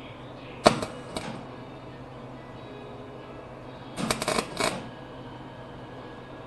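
Wire-feed welder arc crackling in two short bursts, about a second in and about four seconds in: tack welds. The tacks come out ugly, and the welder's owner blames kinks and slippage in the feed wire cable.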